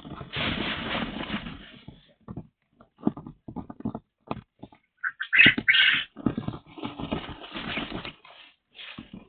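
Pet birds calling in irregular bursts, with the loudest squawks about five to six seconds in.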